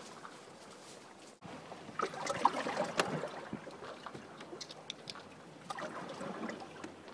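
Water lapping and sloshing against a small sailboat's hull, with light wind. There are a few sharp clicks and knocks about two to three seconds in.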